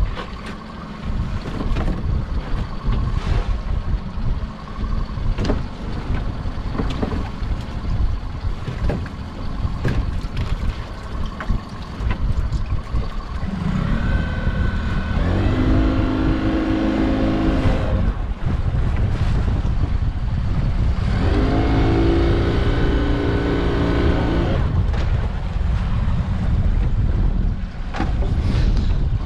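A small fishing boat's motor running under a steady rumble of wind and water, with scattered knocks and clatter from lobster pots being handled against the hull. Twice, for a few seconds each, a motor whine rises and then holds steady.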